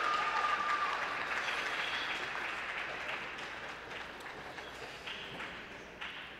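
Audience applause that gradually dies away, with the held final note of the program music fading out about a second in.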